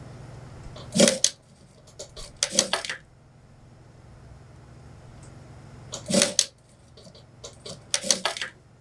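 Industrial lockstitch sewing machine stitching in four short runs, each a brief rapid clatter of a few stitches, with a steady low motor hum between them.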